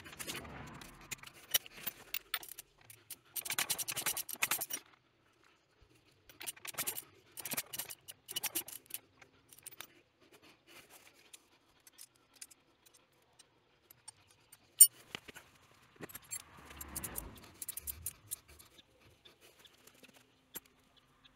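Socket ratchet clicking in rapid bursts, about four runs of clicks, as the engine is turned over by hand at the camshaft sprocket bolt. There is one sharp metallic clack about 15 seconds in.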